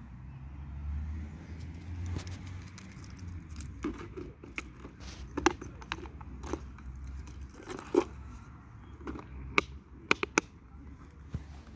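Laser-cut plywood clutch bag being handled: a run of light wooden clicks and knocks as the flap is lifted, an item slipped inside and the magnetic snap pressed shut, with a quick cluster of clicks near the end. A low steady rumble lies underneath.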